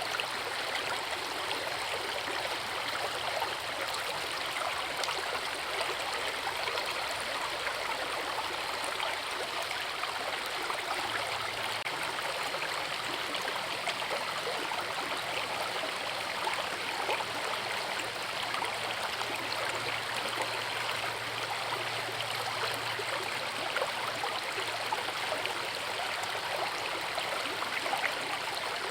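A forest river rushing steadily, with constant small splashes in the flow.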